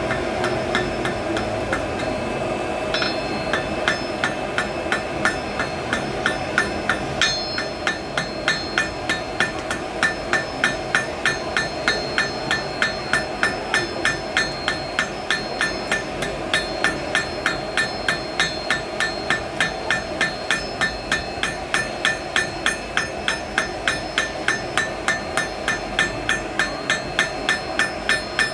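Blacksmith's hammer striking hot iron on an anvil, a steady run of ringing blows at about two to three a second that begins a few seconds in.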